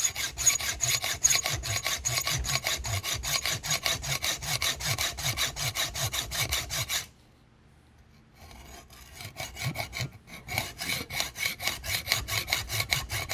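Hacksaw cutting a notch in a steel bar held in a vise, in fast, even back-and-forth strokes. The sawing stops about seven seconds in for a second and a half, then resumes with lighter strokes that build back to full pace.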